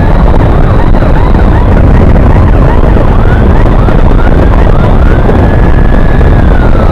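Electronic emergency siren sounding over heavy wind and road rumble from a moving motorcycle. A held high wail ends as the sound begins, then comes a run of quick yelps, about three a second. About five seconds in, the wail rises again, holds, and falls away near the end.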